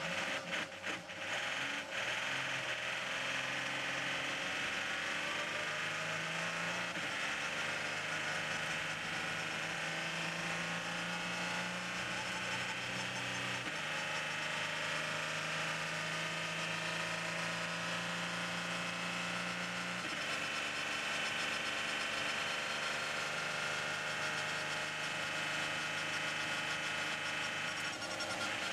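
Onboard sound of an Audi R18 e-tron quattro Le Mans prototype running on a wet straight: the 4.0-litre V6 turbodiesel drones steadily under a dense hiss of spray and wind, with a faint rising whine. The engine note changes pitch abruptly three times, and a few sharp clicks come in the first couple of seconds.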